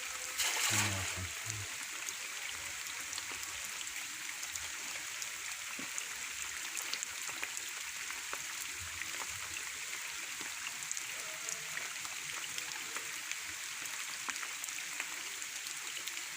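Steady hiss of rain and running water, dotted with small drop ticks. About half a second in there is a brief louder burst with a few low thuds.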